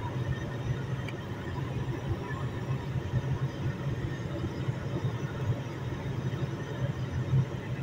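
Steady road and engine noise inside the cabin of a Toyota Corolla cruising on a highway: a low, even drone.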